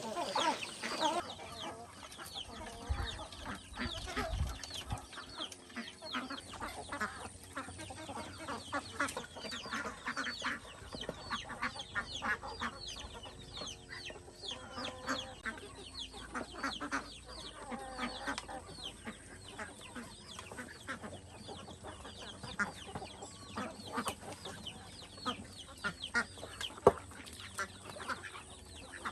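A flock of chickens clucking, with many short calls overlapping throughout and one sharp knock near the end.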